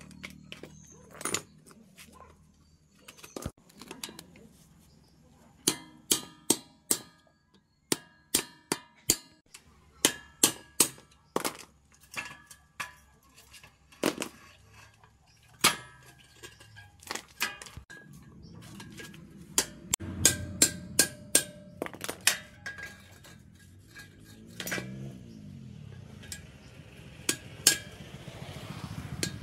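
Metal being struck with a hammer: irregular runs of sharp clinks, each leaving a short metallic ring, over a faint low hum.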